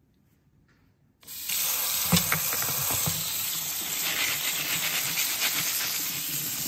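Kitchen tap turned on about a second in, cold water running in a steady stream onto dry pinto beans in a plastic colander in the sink, with a brief knock soon after it starts.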